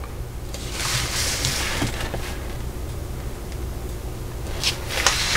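Paper rustling as a semi-gloss fold-out instruction sheet is handled and slid along, in two stretches with a few small crinkles, over a low steady hum.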